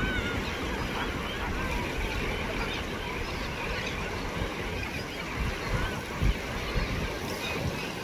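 A flock of seabirds calling over the water, many short overlapping calls, with wind buffeting the microphone and the wash of surf.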